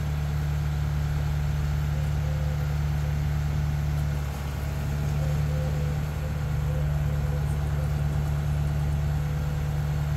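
Diesel engine of a Tadano ATF 100G-4 all-terrain crane running steadily, driving the hydraulics while the crane holds a suspended catamaran, with a brief dip in level about four seconds in.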